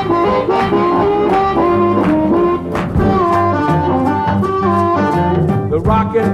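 Blues band music: a lead wind instrument plays held, bending notes over electric bass, guitar and a steady drum beat.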